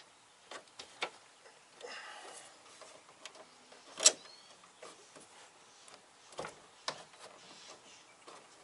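Scattered light clicks and taps as the ends of a VW MK4 hood gas strut are worked onto their mounts, with one sharper click about four seconds in.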